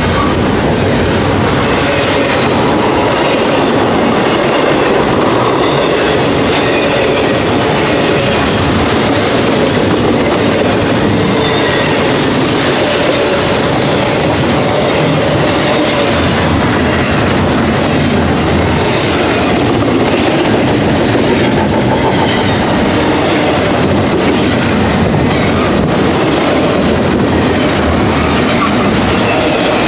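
Double-stack container well cars of a freight train rolling past: a steady, loud noise of steel wheels on rail, with wheels clicking over rail joints.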